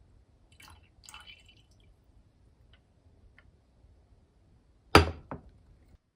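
Faint rustling and small clicks, then a sharp knock about five seconds in, followed quickly by a second, weaker knock.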